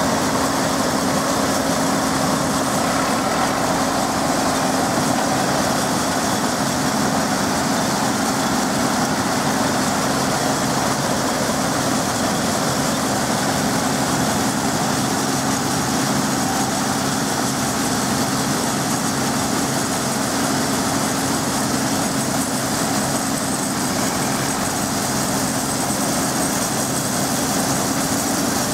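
Vintage Caterpillar diesel crawler tractor running steadily as it tows a Holt Model 36 combine harvester through stubble. Even machine drone with no changes.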